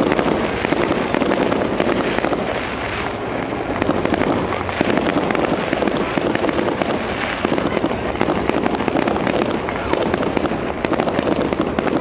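Fireworks display: a dense, unbroken run of crackling and small bangs from bursting aerial shells, many overlapping.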